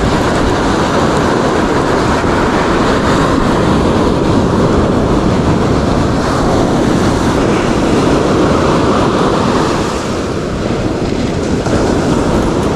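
Ocean surf breaking and washing up a sandy beach, a steady loud rush.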